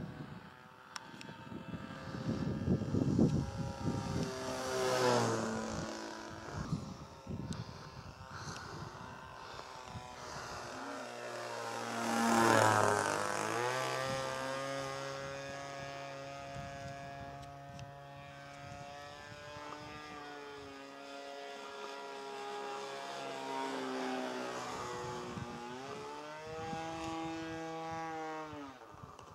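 Radio-controlled model airplane's engine and propeller flying past overhead: a steady buzzing note whose pitch drops sharply as the plane goes by, twice, about five and twelve seconds in, the second pass the loudest. Later the pitch rises and falls again with the throttle and flight path.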